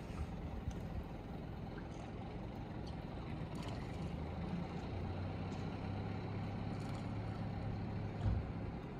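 Low, steady hum of a vehicle engine over outdoor background noise. The hum grows louder about halfway through, and a brief low thump comes near the end.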